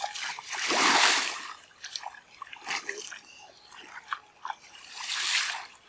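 Water splashing in two bursts, about a second in and again near the end, with scattered small clicks and knocks between.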